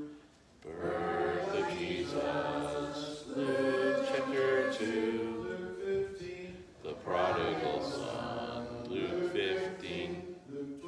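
A class of children reciting memorized Bible references together in unison, many voices overlapping. It starts after a brief pause.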